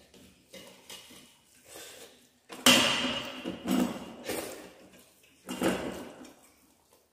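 Stainless-steel plates and bowls clinking and scraping as rice and curry are eaten by hand, in a string of separate bursts, the loudest about two and a half seconds in.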